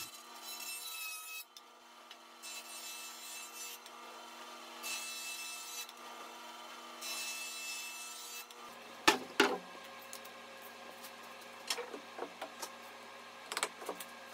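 Jointer running with a steady hum while white oak boards are fed across its cutterhead: four passes, each a hiss of cutting lasting about a second. After about nine seconds the hum drops lower and a few sharp knocks of handled wood follow.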